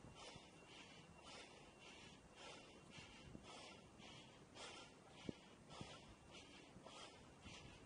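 Faint, even puffs of heavy breathing from a person climbing a long flight of outdoor steps, about two puffs a second, with a couple of soft thuds a little past the middle.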